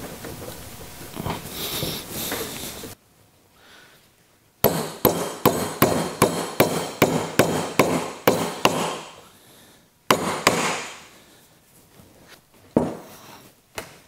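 A small hammer tapping steel taper pins into a lathe compound's cast-iron screw bracket: a quick run of sharp metallic taps, about three or four a second for around four seconds, then two single taps.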